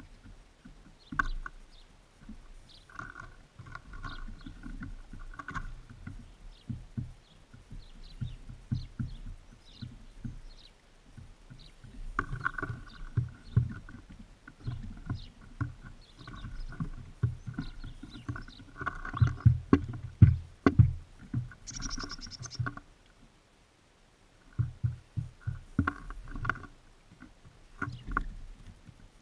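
Birds feeding on a bird feeder close to the microphone: a rapid, uneven run of soft knocks and taps as they peck at seed and hop about on the feeder, with short clusters of higher calls and one shrill note about two-thirds of the way through.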